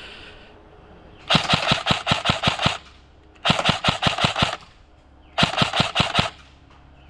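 Airsoft gun firing three full-auto bursts of sharp, rapid shots at about seven a second. The first burst is the longest, starting about a second in; the other two follow after short pauses.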